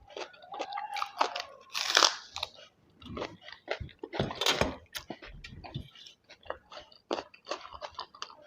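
Close-miked eating: crunchy bites and wet chewing, with two loud crunching bites about two seconds in and again around four and a half seconds.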